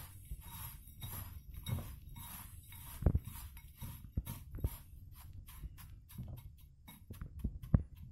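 A hand mixing dry, crumbly fishing groundbait of breadcrumbs and ground biscuit in a bowl: repeated rustling swishes of the crumbs, with a few knocks against the bowl.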